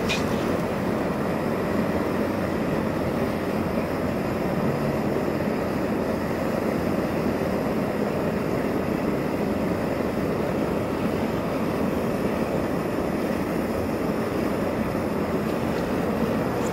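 High-intensity gas torch burning at full blast against a composite block, a steady, even rush of flame.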